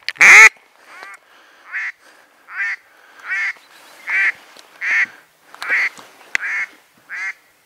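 A duck call blown in a steady run of hen-mallard-style quacks, about one every 0.8 s. The first quack is much louder than the rest. The calling is aimed at ducks circling overhead to bring them in over the blind. A single sharp click comes a little after six seconds in.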